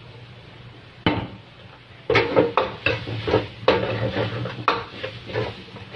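Metal spatula scraping and clanking against a steel wok while stir-frying a tuna and tofu mixture. There is a single knock about a second in, then repeated scrapes from about two seconds in, roughly three a second, over a steady low hum.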